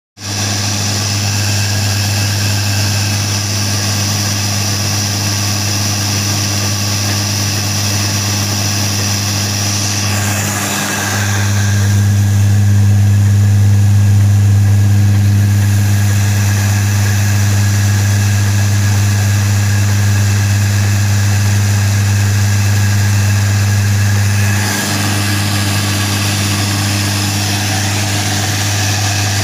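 Atta chakki flour mill running steadily while grinding wheat, a loud constant mechanical hum. It grows louder partway through and eases back a few seconds before the end.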